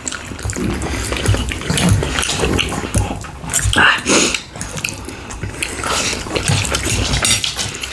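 Close-miked chewing and mouth smacking of food, a run of irregular wet clicks and smacks.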